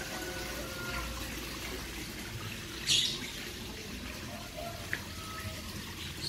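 Steady running, trickling water, with a few faint bird chirps over it. About three seconds in, a short sharp rush of hissing noise is the loudest thing.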